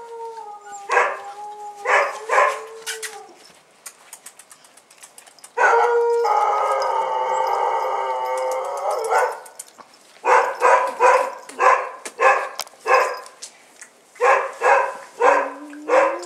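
Bull terrier puppies yelping and whining: a few short high yelps, then one long drawn-out cry of about four seconds near the middle, then two quick runs of short yaps, about three a second.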